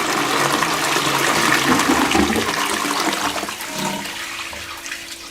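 Balterley Beo Regent toilet's small (half) flush: water rushing loudly down the bowl, tailing off from about four seconds in and leaving a steady low hum.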